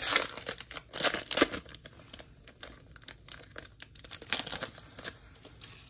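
The foil wrapper of a pack of baseball trading cards being torn open and peeled back, crinkling irregularly, with louder crackles near the start, about a second in and around four and a half seconds in.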